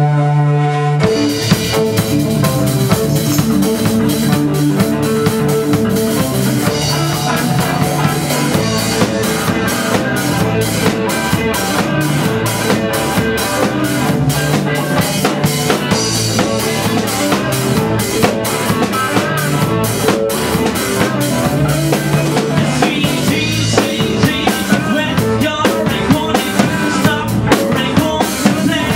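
Live rock band playing amplified: guitar and bass with a full drum kit that comes in about a second in and keeps a steady beat of bass drum and snare.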